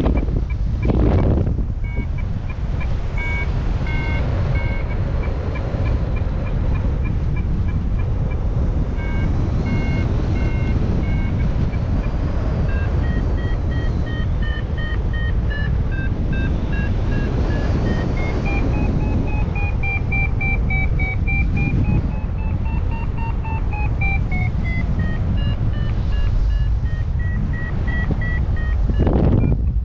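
XC Tracer Maxx paragliding variometer beeping over heavy wind rush on the microphone; the beep rate and pitch keep shifting, and past the middle the beeps run into a longer tone that slides up and down before breaking into beeps again. Vario beeping like this signals the glider is climbing in lift, the pitch following the climb rate.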